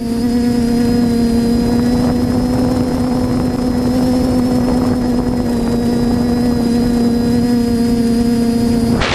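Multirotor drone's propellers and motors humming at a steady pitch, as when the drone is hovering.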